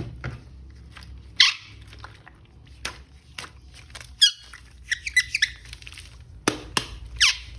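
A series of short high-pitched squeaks and sharp clicks, with a cluster of quick chirping squeaks about four to five and a half seconds in.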